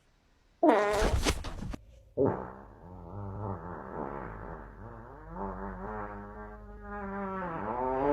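Fart sound effects: a short loud blast, then a long buzzy one lasting about six seconds that wavers in pitch and dips near the end.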